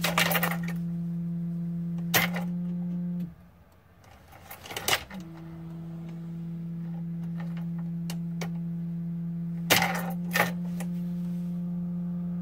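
A faulty fuel pressure relief valve on a 2004 Mercedes Sprinter's high-pressure diesel pump makes a steady low hum with a couple of fainter overtones. The hum cuts out about three seconds in and comes back about two seconds later. A few sharp clicks sound over it.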